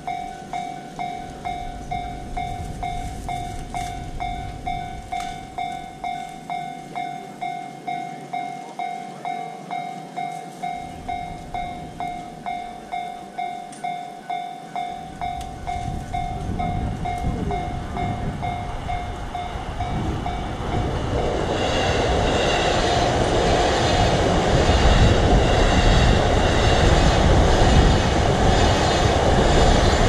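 Japanese level-crossing warning bell ringing its repeated electronic ding at a steady beat, about one and a half strikes a second. About halfway through, a train's rumble builds, and from about two-thirds in a passing train fills the sound and covers the bell.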